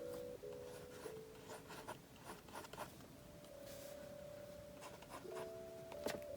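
Marker tips scratching and tapping on paper in short strokes, with soft background music holding sustained notes underneath.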